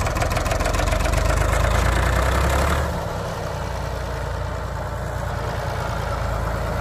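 Old tractor engine running steadily as the tractor drives across a grassy slope, getting a little quieter about three seconds in.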